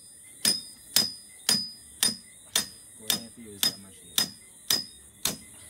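A machete chopping through a large fish on a wooden board: steady blows about two a second, each with a short metallic ring from the blade.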